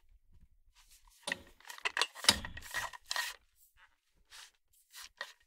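Handling noise from a Neewer NW-088 boom pole being put back together: tube segments and a plastic twist-lock collar rubbing and clicking in irregular short scrapes, busiest between about one and three seconds in, then a few faint ticks.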